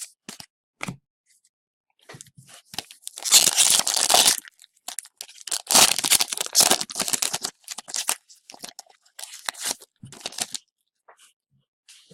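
A hockey trading-card pack being torn open by hand: two long rips of the wrapper, about three and six seconds in, with crinkling of the wrapper and short rustles between them.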